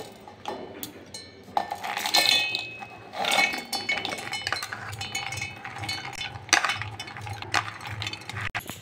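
Soaked chickpeas poured from a plate into a stainless-steel mixer-grinder jar, rattling and clinking against the steel, with a ringing tone after the clinks.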